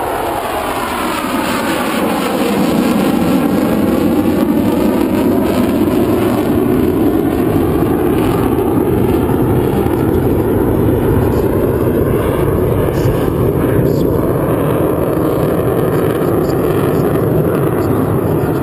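Belgian Air Force F-16 fighter jet flying past, its engine noise sweeping down in pitch over the first couple of seconds, then a loud, steady jet rumble as it flies on.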